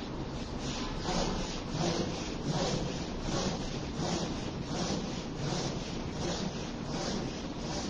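Rhythmic forceful breathing, about two strokes a second, the breath drawn in and pushed out hard as in Sufi zikr qalbi breathing exercises.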